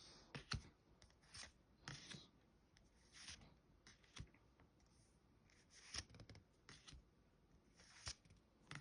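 Faint, intermittent rustle and slide of Pokémon trading cards being flipped through one by one by hand, a soft brush or snap every second or so.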